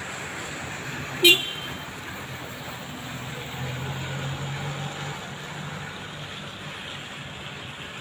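A single short car horn toot about a second in, over steady outdoor traffic noise; a low vehicle engine rumble swells briefly midway.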